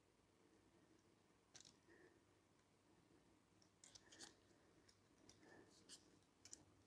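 Near silence, with a few faint scattered clicks as brass clock wheels and a small metal tool touch the movement's plates while the wheels are fitted into their pivot holes.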